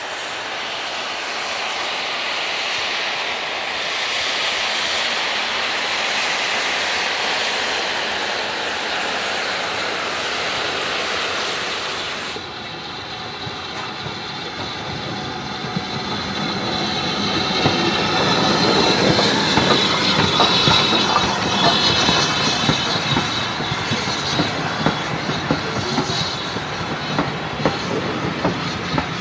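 BR Standard Class 4MT 2-6-4 tank engine No. 80151 working a passenger train past at close range: a rising hiss and rush of steam as it approaches. The sound changes abruptly about twelve seconds in, then the engine and coaches roll by with quick clickety-clack of wheels over rail joints and a high squeal from the wheels, loudest as they pass.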